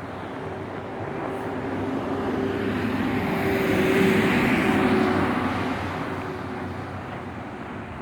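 A vehicle passing by, its sound swelling to a peak about four seconds in and then fading away.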